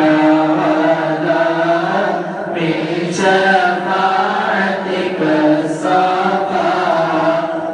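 Group of male voices chanting a mawlid, Arabic devotional praise, together in a continuous melodic recitation.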